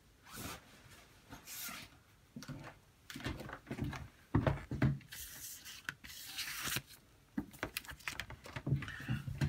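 Handling noise on a desk: plastic film and cardboard packaging rustling and crinkling as they are pushed aside, in several separate rustles. A few knocks and thumps come about four to five seconds in.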